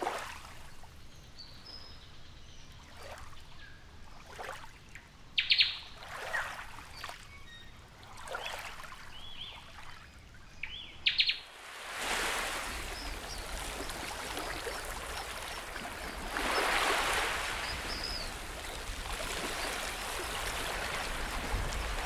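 Birds chirping and calling, with several short, sharp calls in the first half. About halfway through, a steady rush of gently lapping water comes in, and birds still chirp faintly over it.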